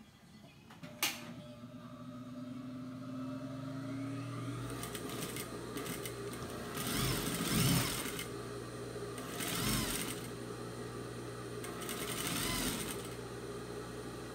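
Electric sewing machine stitching cotton fabric: a sharp click about a second in, then a steady motor hum with three louder spurts of rapid stitching.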